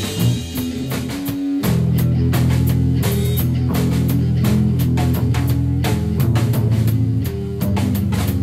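Rock band playing: electric guitar with a drum kit keeping fast, steady hits. The low notes drop out briefly about a second in, and the full band comes back in before two seconds.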